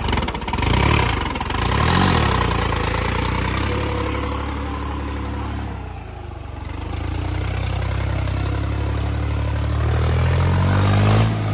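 Tractor diesel engine labouring under heavy load while the tractor churns through deep mud, the revs rising and falling, dipping about six seconds in and climbing again near the end.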